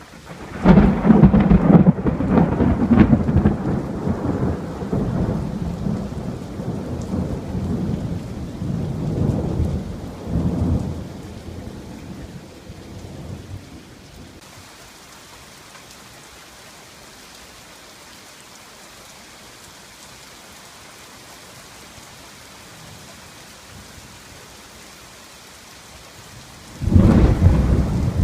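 Thunderstorm: a sudden loud thunderclap about half a second in that rumbles on and fades away over about a dozen seconds. Steady rain falls throughout, and a second loud thunderclap breaks near the end.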